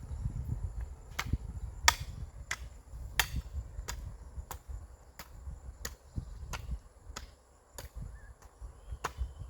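Rhythmic chopping strikes, about three every two seconds, each a sharp click over dull low thuds.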